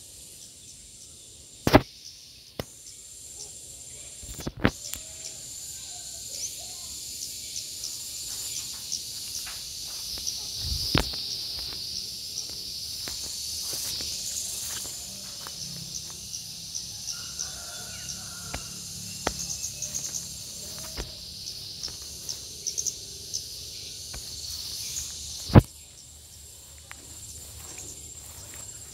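Garengpung cicada singing: a high buzzing song with a rapid ticking pulse that starts about four seconds in and cuts off suddenly near the end. Sharp knocks come about two seconds in and at the moment the song stops, and a thin, steady, high insect tone runs under it all.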